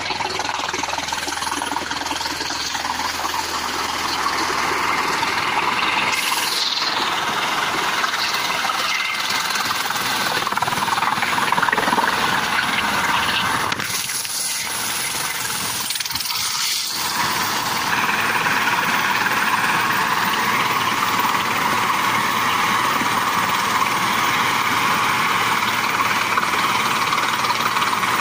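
Helicopter with a shrouded tail fan running close by: first during its approach to the pad, then idling on the ground with the main rotor turning, giving a steady turbine whine over rotor noise.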